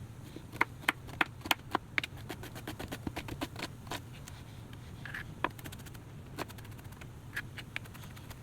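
Knife chopping onions on a cutting board: irregular sharp taps, several a second.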